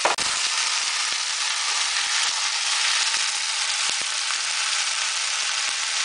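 Chopped peppers, onion and tomatoes sizzling in hot oil in an enamel pot, a steady hiss, while a silicone spatula stirs them with a few faint knocks. A short click and a brief break in the sound just at the start.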